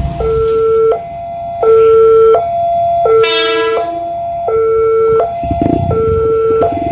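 Railway level-crossing alarm sounding a two-tone electronic warning, a lower and a higher tone alternating about every 0.7 seconds, signalling that a train is approaching. A short horn blast cuts in about three seconds in.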